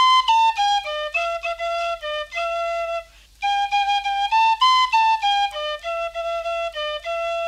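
Irish tin whistle playing a solo melody of short notes. The phrase breaks off briefly about three seconds in, then repeats.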